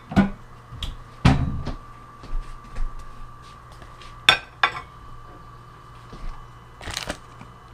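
Plates and dishes being handled and set down on a wooden table: a series of sharp knocks and clatters, the loudest about a second in with a dull thud, over a faint steady hum.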